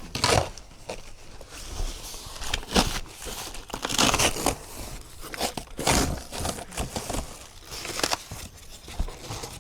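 Packing material crinkling and rustling in irregular bursts, with a few scrapes and knocks, as parts are pulled out of a shipping box.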